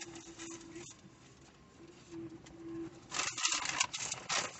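Brown paper takeout bag rustling and crinkling in irregular bursts as it is handled, starting about three seconds in after a quieter stretch.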